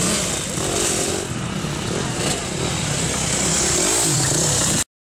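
Off-road motorcycle engines running and revving as dirt bikes climb a rocky course, getting louder near the end as one bike passes close. The sound cuts off abruptly shortly before the end.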